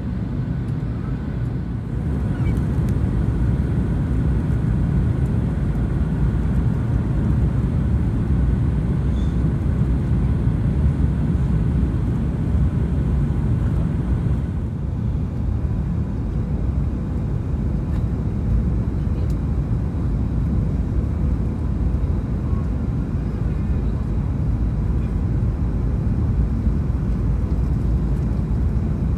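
Steady cabin noise of a Boeing 737-900ER in flight, heard at a window seat behind the wing: a low rumble of the CFM56 engines and rushing airflow, with faint steady tones over it. The higher hiss eases a little about halfway through.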